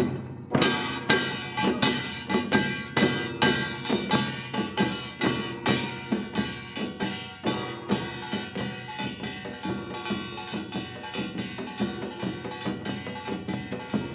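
Korean traditional percussion ensemble playing: sharp drum strikes over a steady ringing, starting again after a brief break and quickening to a denser beat about halfway through.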